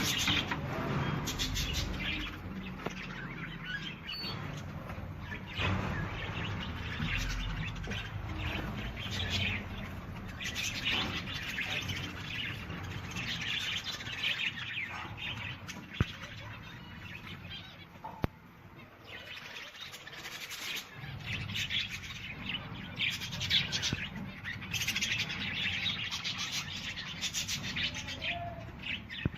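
Birds chirping in repeated bouts of rapid high calls, over a steady low rumble, with two sharp clicks midway.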